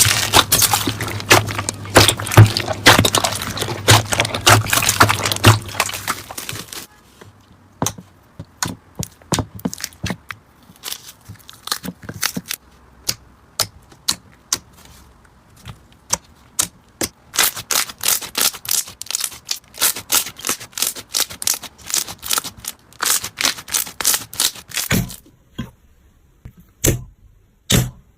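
Slime being squished and pressed, giving dense crackling and popping clicks for the first several seconds, then scattered single pops, then a quicker run of pops again later on.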